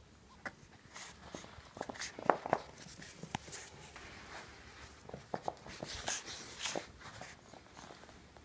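A two-month-old French Bulldog puppy sniffing and moving about close to the microphone: scattered soft scuffs, taps and short snuffles, with a few sharper knocks about two seconds in.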